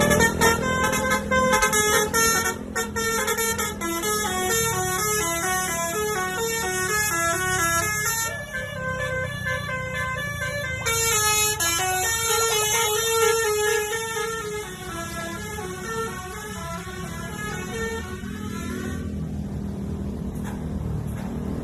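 Bus basuri (telolet) musical horn playing a long melody of stepping notes over the running engine. The tune stops about nineteen seconds in with a short rising slide, leaving only the engine.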